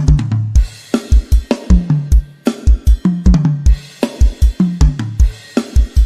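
Sampled drum kit (Sound I Projects Sonar 'Add2' kit for eXtreme Karaoke) playing a fast, steady beat of kick drum, snare, hi-hat and cymbals, with repeated tom fills that step down in pitch.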